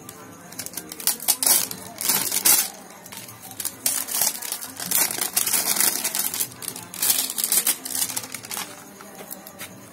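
Clear plastic wrapping crinkling and tearing in irregular bursts as it is pulled off a kite-string spool by hand.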